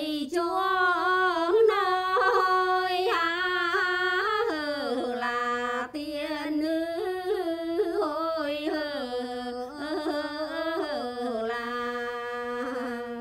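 Unaccompanied female singing of a Quan họ folk song: long held notes bent with small ornamented turns, breaking off briefly about six seconds in before the melody resumes.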